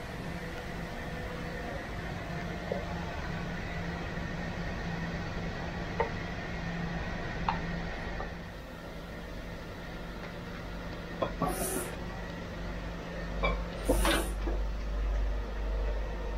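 Steady workshop machine hum with a few sharp clicks and knocks from crystal blanks and plates being handled. Near the end a deep low rumble sets in, as a rotating grinding wheel runs, with a burst of knocks.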